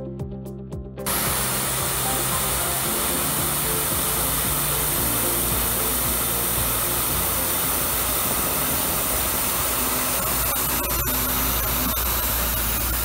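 Background music for about a second, then it cuts to a Tormach PCNC 770 CNC mill's end mill cutting quarter-inch aluminium plate: a steady hiss with a low hum underneath.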